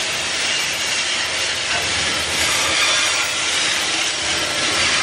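Freight train hopper wagons rolling past, a steady grinding, rubbing noise of steel wheels on the rails with no break.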